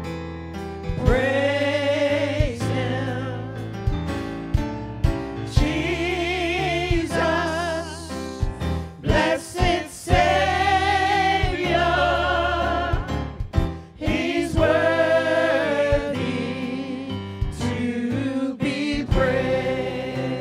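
Live gospel song: singers' voices holding long notes with vibrato, over electric keyboard accompaniment.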